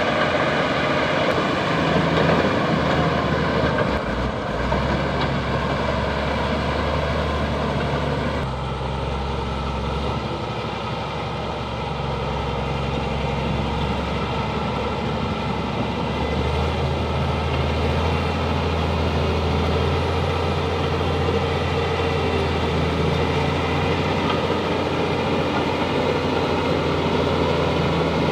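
Bulldozer's diesel engine running steadily while it works the ground, its note shifting a few times.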